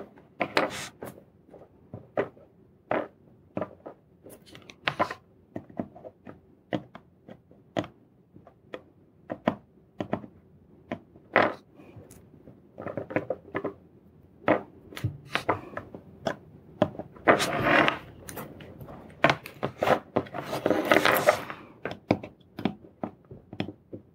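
Irregular light clicks and taps of a soldering iron tip and a small circuit board being handled on a wooden tabletop while a surface-mount chip's pins are soldered. Longer scraping rustles come twice near the end.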